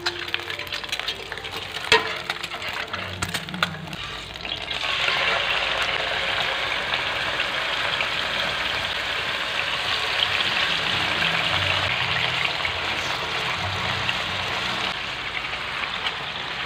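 Food frying in hot oil in a nonstick frying pan: scattered sharp crackles and pops over frying eggs at first, then from about five seconds in a louder, steady sizzle as slices of pork fry.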